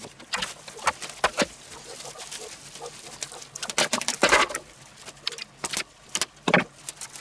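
Crackling and rustling of plastic cling film as a film-wrapped pork roast is handled and lifted out of a stainless-steel tray, with a few sharp knocks, the loudest about four seconds in.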